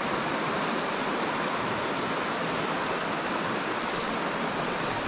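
Steady rush of a trout creek's flowing water, the creek running a bit high.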